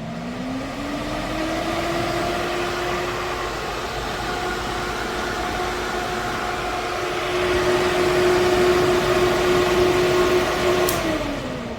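Fanspex 8-inch metal-bladed wall-mount exhaust fan spinning up, its hum rising in pitch over the first couple of seconds, then running steadily with a rush of air. Near the end a switch clicks and the hum falls as the fan winds down.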